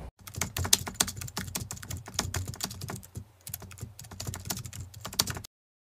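Keyboard typing sound effect: a fast, irregular run of clicks with a short lull about three seconds in, cutting off abruptly near the end.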